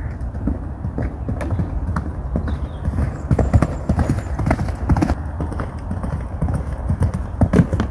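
A pony's hoofbeats on a sand arena surface: a run of irregular dull thuds as it is ridden over a jump and on around the arena, over a steady low rumble.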